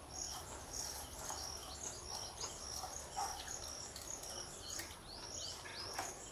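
Insects chirping: short high chirps repeating two or three times a second over a thin continuous high buzz. Near the end a few quick falling bird chirps come in.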